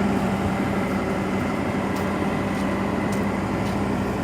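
Heavy truck's diesel engine running steadily under load, a constant drone with no change in pitch.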